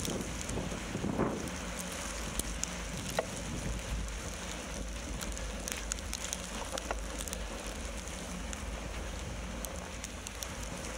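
A bicycle riding through snow: wind rumbling on the microphone, with the tyres crackling over the snow and scattered small ticks.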